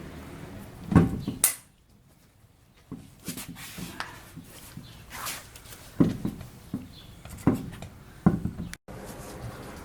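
Scattered sharp metallic clanks and knocks of a lug wrench and wheel hardware being handled as a car wheel is refitted, with the sound cutting out briefly twice.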